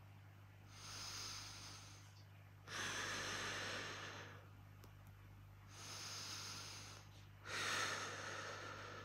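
A woman in labour breathing slowly and deeply through a contraction, two full breaths in and out. In each breath a softer breath is followed by a louder one that starts abruptly.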